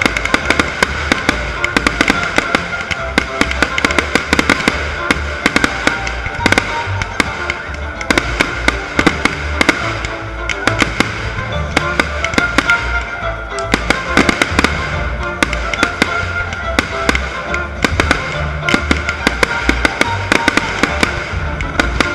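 Fireworks display: a dense, continuous run of firework bangs and crackles, several a second, over music with a pulsing bass.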